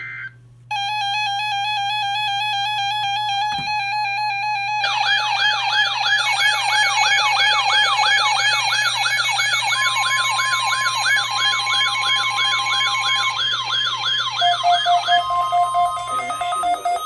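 Electronic siren-type alert tones. A steady electronic tone starts just under a second in. About five seconds in it becomes a rapid yelp-like sweep, up and down two to three times a second, with a separate steady tone laid over it for a few seconds. Near the end, pulsing steady tones follow.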